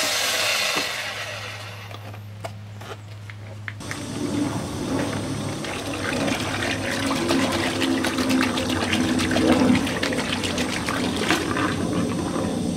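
Water from a garden-hose spray nozzle splashing into a plastic bucket, filling it and foaming up the car-wash soap; the water stream starts suddenly about four seconds in.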